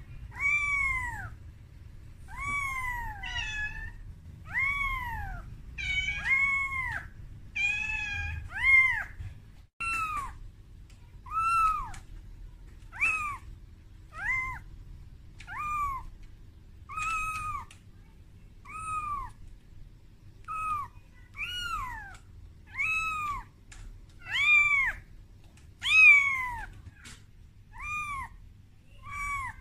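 Young calico kitten mewing over and over, short high calls about one a second, each rising and then falling in pitch. These are a kitten's crying calls for its mother, made while it is frightened.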